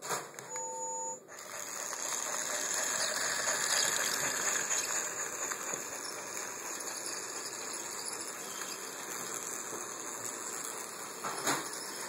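Battery-powered TrackMaster Talking Gordon toy engine running on plastic track: a steady electric motor whir with wheel rattle, swelling a little a few seconds in. A short electronic tone sounds about half a second in, and a click comes near the end.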